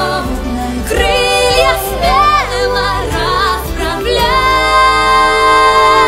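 Music: a song with a voice singing a melody over instrumental backing, settling on one long held note about four seconds in.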